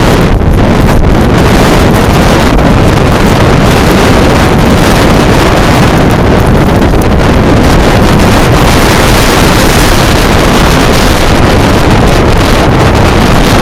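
Strong wind buffeting the microphone: a loud, unbroken rushing rumble with no let-up.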